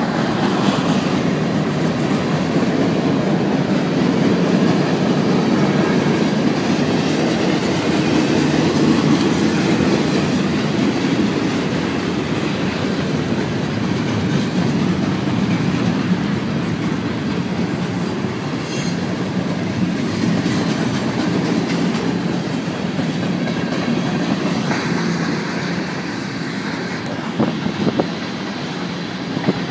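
Freight cars (covered hoppers, gondolas and tank cars) rolling steadily past over a grade crossing: a continuous rumble of steel wheels on rail with rhythmic clickety-clack over the rail joints, and a few sharper clacks near the end.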